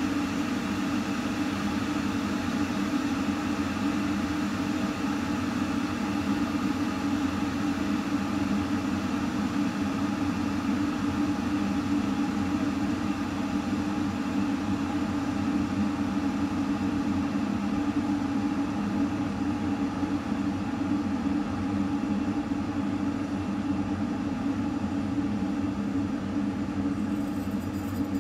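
1976 Swan Automatic electric kettle heating water, giving a steady rumbling hiss that holds even throughout.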